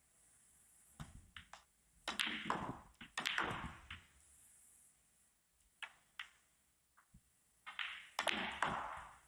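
Snooker balls clicking and knocking: the cue striking the cue ball and the balls hitting each other, with duller thuds as balls go into the pockets, over several shots. The knocks come in groups, about two to four seconds in and again near the end.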